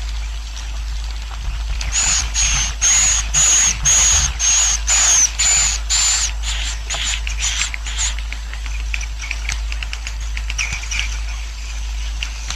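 Swiftlet colony roosting call ('suara inap'), the recording played in swiftlet houses to settle a colony: rapid, buzzy, high twittering chirps, with a louder run of them about twice a second for the first few seconds, then denser, softer chatter. A steady low hum runs underneath.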